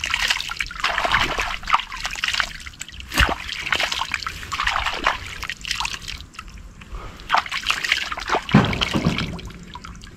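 Muddy water splashing and trickling in irregular bursts as a hand scoops water and mud out of a rut around a motorcycle wheel that is stuck in the mud.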